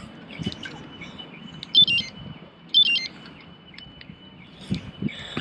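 GPS bike computer on the handlebars beeping: two quick runs of high electronic beep notes about a second apart.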